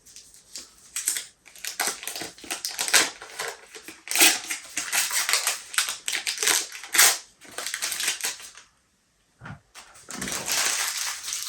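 Paper wrapper crinkling and rustling as a stick of butter is unwrapped and handled, in a quick run of crackles and clicks; after a short pause near the end comes a steadier rustle.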